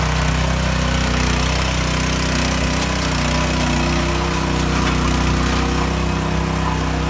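Small petrol engine of a walk-behind rotary tiller running steadily as its tines churn through wet concrete mix.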